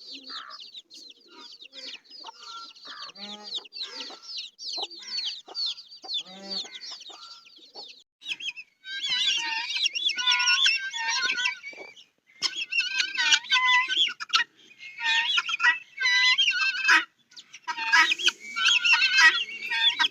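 Young poultry peeping in a steady stream of rapid, high, falling chirps; about halfway through the calling turns louder and denser, coming in bursts with short pauses between them.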